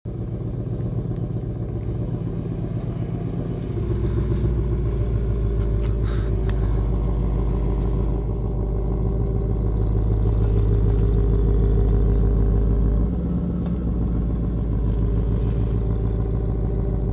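2017 Ford Mustang GT's 5.0-litre V8 running at a steady idle. It gets a little louder about four seconds in and drops back slightly about thirteen seconds in.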